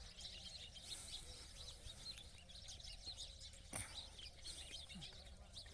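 Many small birds chirping faintly all at once, a dense overlapping chorus over a steady low outdoor rumble, with one brief sharp tap a little past the middle.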